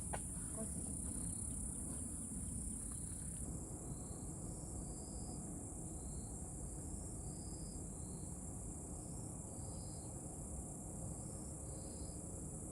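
Crickets trilling in a steady, high-pitched continuous band over a low background rumble. From about four seconds in, short faint higher calls recur about once a second.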